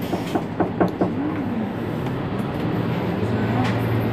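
Mercedes-Benz Citaro C2 city bus idling at a stop, with a few sharp knocks in the first second. About three seconds in, a steadier, stronger low hum comes in.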